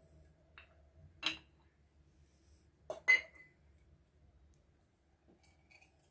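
A small cup clinking against kitchenware while olive oil is measured out. There is a single clink about a second in, a sharper double clink with a brief ring about three seconds in, and faint ticks near the end.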